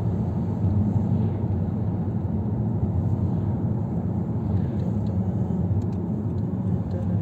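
Steady low rumble of road noise inside a moving car's cabin, from tyres and engine at highway speed.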